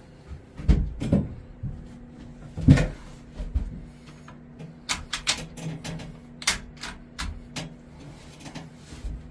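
Air rifle firing through an Impulse Air 1350 suppressor fitted with two extra baffles (six in all), with the metal clicks of the gun being handled and cycled. Several sharp knocks, the loudest under three seconds in, then a run of quick clicks.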